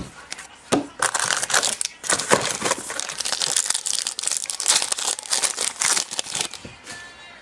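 Crinkling and rustling of football trading cards and their packaging being handled, a dense run of quick crackles from about a second in until near the end.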